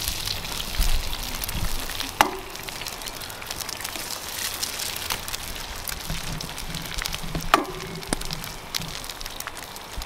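Sausages sizzling over a crackling campfire, a steady frying hiss full of small pops. Two louder sharp cracks come about two seconds in and again five seconds later.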